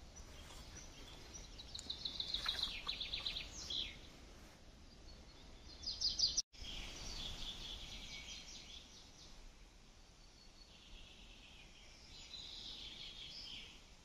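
Wild songbirds singing: several fast trilled phrases of rapid high notes, one after another, over a faint outdoor background. The sound cuts out for an instant a little past six seconds in.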